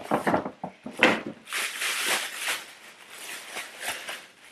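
Thin plastic shopping bag rustling and crinkling as hands dig through it, with a sharp crackle about a second in.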